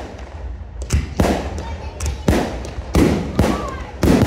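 Fireworks display: aerial shells bursting in a rapid, irregular series of loud bangs, about six in four seconds, each trailing off briefly.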